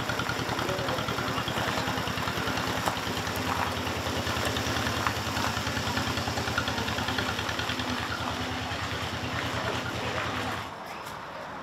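Vintage John Deere tractor engine running at a steady low speed as it pulls a loaded hay wagon past, with a fast, even chugging pulse. It fades as the tractor moves off and drops away about ten and a half seconds in.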